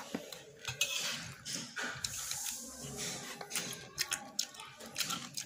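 A metal spoon clicking and scraping against a metal plate at irregular moments, with wet eating sounds of macaroni in broth.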